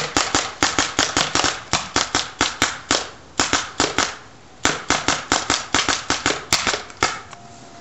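Spyder VS3 paintball marker firing rapid strings of shots, about four to five pops a second, with two brief pauses midway; the firing stops near the end.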